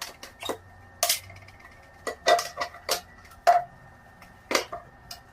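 Lunchbox being opened and handled: lid catches and inner containers clicking and clacking against each other in a series of sharp, irregular knocks.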